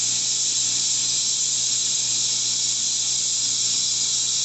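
Water running steadily from a kitchen tap, a constant even hiss.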